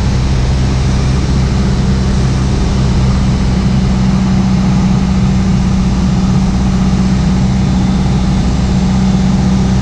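Piper Warrior's four-cylinder Lycoming engine and propeller droning steadily in flight, heard inside the cabin with an even rush of air noise.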